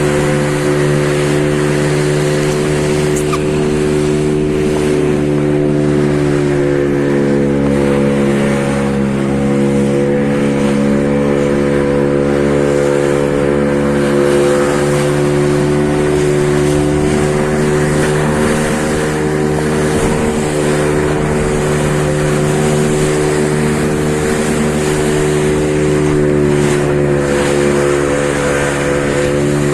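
Engine running steadily at a constant speed, its pitch wavering slightly a few times.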